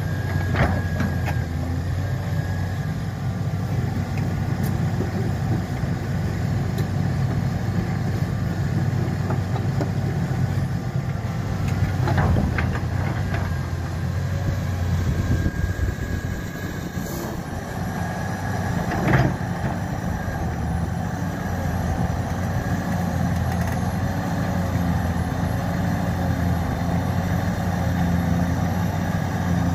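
Hyundai 300LC crawler excavator's diesel engine running steadily, with a few short sharp knocks about 12 and 19 seconds in.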